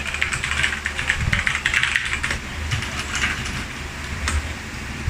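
Typing on a mechanical keyboard: quick runs of key clicks in bursts with short pauses, over a steady low hum.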